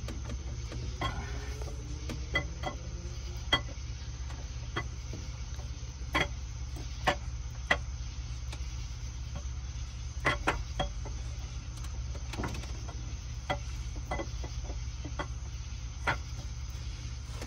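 Scattered light metallic clicks and taps, a dozen or so at irregular intervals, as engine parts and tools are handled during a camshaft install. A steady low hum runs underneath.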